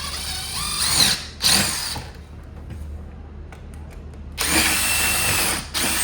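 Power drill driving screws to fasten a window air conditioner's support bracket: two runs, the first with a rising whine, the second steadier and stopping near the end.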